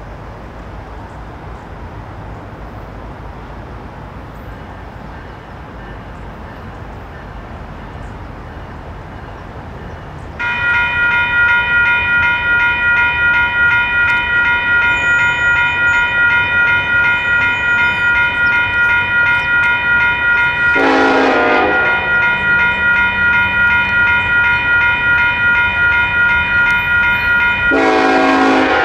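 Railroad crossing's WCH electronic bells start ringing about a third of the way in, a fast steady ding that continues to the end. Over them a Union Pacific freight locomotive's horn sounds twice: one blast of about a second a little past two-thirds of the way through, and another that starts near the end. Before the bells there is only a low rumble.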